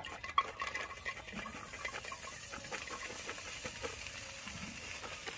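Fried insects tipped from a plastic plate into a steel wok, pattering and clicking onto the metal over a steady sizzle from the hot pan.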